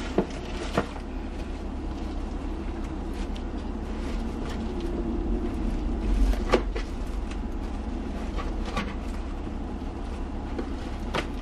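A silicone mold being peeled off a hollow white chocolate tooth with gloved hands: a few sharp clicks and soft rustles over a steady low background hum.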